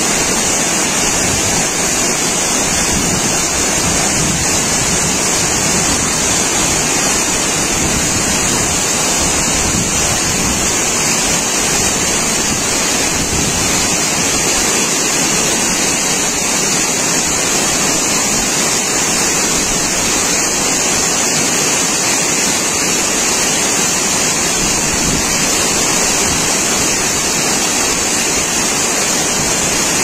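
Tall waterfall pouring down a rock face: a steady, even rush of falling water.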